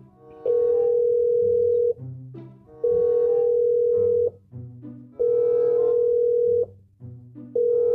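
Telephone ringback tone of an outgoing call waiting to be answered: a steady tone about a second and a half long, repeated four times with short gaps, over music.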